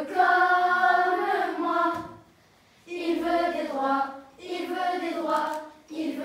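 A group of schoolchildren singing together in chorus, in sustained phrases with a short break about two seconds in.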